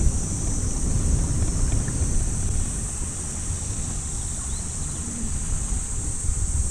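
Wind buffeting the microphone outdoors, a gusty low rumble that swells and eases, over a steady high-pitched hiss.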